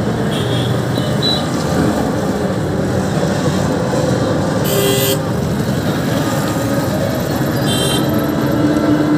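Steady engine and road noise heard from inside a moving auto-rickshaw in city traffic, with a couple of short high-pitched beeps, one about halfway through and one near the end.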